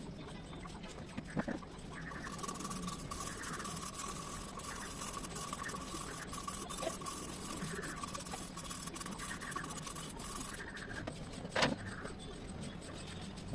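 Steady abrasive rubbing on a metal engine part for about eight seconds, with a faint steady whine under it. A single sharp knock comes near the end.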